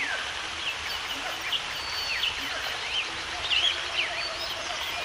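Several birds chirping and calling in quick, overlapping short notes, many of them sliding up or down in pitch, over a steady background hiss.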